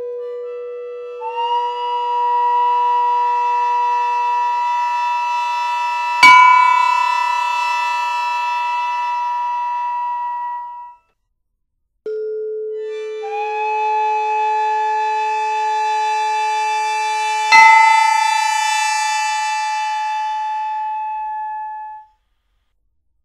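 Slow Chinese ritual music of long, steady wind-like notes in two phrases with a short silence between them. In each phrase a lower note gives way to a higher held note, and a single sharp strike gives a loud accent midway through.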